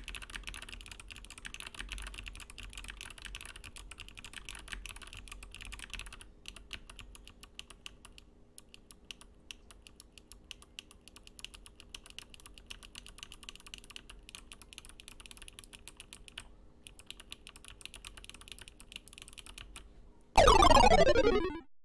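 Fast typing on a mechanical keyboard fitted with clicky Kailh clickbar switches: a dense run of sharp key clicks, heavier for the first six seconds, lighter afterwards with a couple of short pauses. Near the end, a loud falling swept tone lasts about a second.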